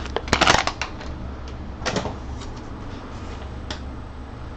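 Clicks and knocks of hard printer parts and packaging being handled and set down: a quick rattling cluster at the start, a single knock about two seconds in, and a fainter one later.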